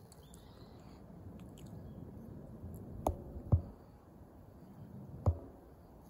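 Three short dull thumps over a low, steady outdoor background noise: two close together about three seconds in, and a third near the end.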